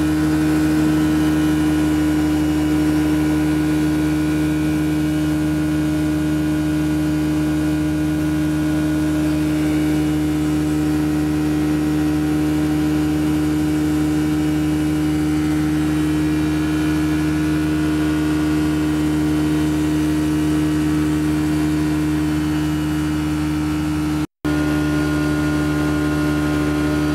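Rans S6 microlight's engine and propeller running steadily in level flight, heard from inside the cockpit, with a momentary gap about 24 seconds in.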